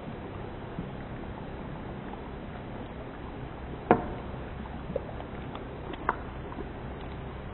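Thick beef korma gravy simmering in a pan: a steady low bubbling hiss with a few sharp pops, the loudest about four seconds in and another about six seconds in.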